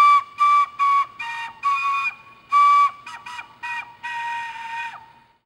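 A short intro tune played on a high, whistle-like wind instrument: a string of separate held notes within a narrow pitch range, each dipping in pitch as it stops, with the last note held longest.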